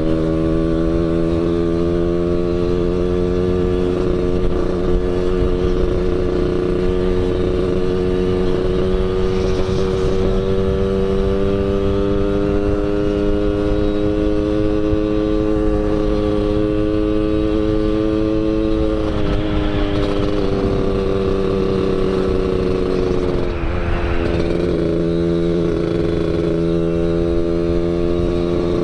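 Yamaha RX-King's two-stroke single-cylinder engine with an underbelly expansion-chamber exhaust, running under way at a near-steady pitch that creeps slowly upward. The note breaks and dips briefly twice, about two-thirds of the way through and again a few seconds later, then settles back to a steady pitch.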